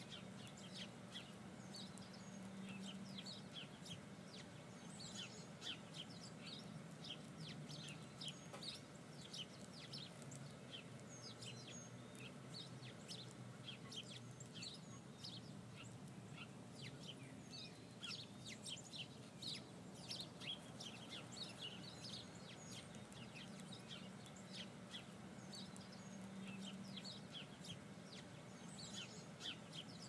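Faint outdoor birdsong: many short, high chirps from small birds, over a low steady hum.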